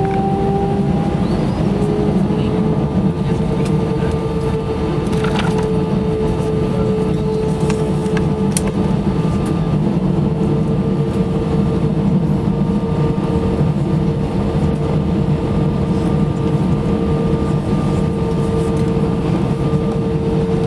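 Airbus A320 cabin noise: a loud, steady low rumble with the jet engines' whine, which rises in pitch over the first few seconds and then holds steady. A couple of light rattles come about five and eight seconds in.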